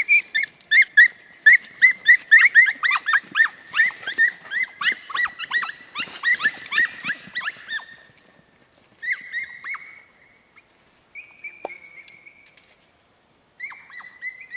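Andalusian podenco hounds yelping in pursuit, rapid high-pitched yelps several a second. After about eight seconds the yelping thins out to a few longer, drawn-out cries.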